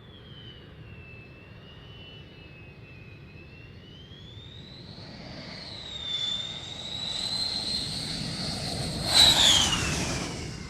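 Jet aircraft flying past: a high engine whine grows louder over several seconds, peaks about nine seconds in, then drops in pitch and fades as the plane passes.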